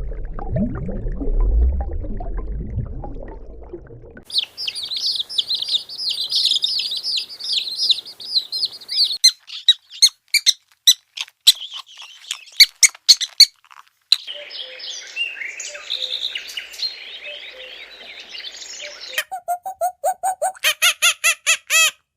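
A low rumbling growl for the first four seconds, then birds chirping and squeaking through a series of short cuts, with sharp clicks in the middle and fast, evenly repeated cheeps near the end.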